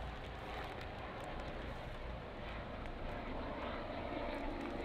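Steady distant engine drone with outdoor background noise, growing a little louder near the end.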